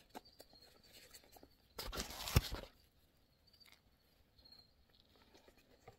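Handling noise from gloved hands working a metal plate onto a steering-wheel airbag module: a few light clicks, then a brief scraping rustle with a sharp knock about two seconds in.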